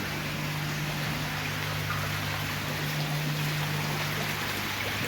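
Water running and trickling into a koi pond, steady throughout, over a steady low hum.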